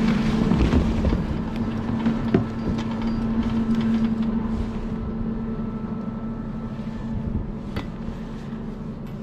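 1996 Poma double chairlift running: a steady machine hum over a rumble, with two sharp clicks, slowly getting quieter.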